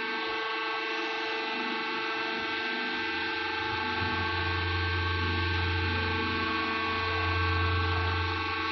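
Hydraulic baler's electric motor and pump running with a steady hum made of several even tones; a deeper hum comes in about three and a half seconds in and holds until near the end.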